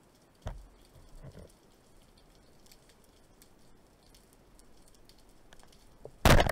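Underwater, a wooden band-powered speargun fires near the end with a short, loud crack and rush, the loudest sound here. Before it come faint scattered clicks and a single dull knock about half a second in.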